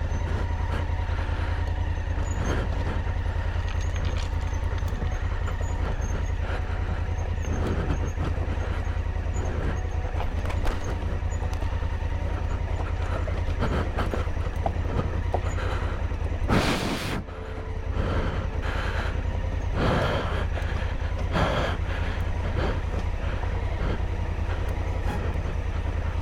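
Large adventure motorcycle running at low revs as it rides down a loose, rocky dirt track, with a steady low rumble and scattered knocks and clatter from stones under the tyres and suspension. A louder rushing burst comes about seventeen seconds in.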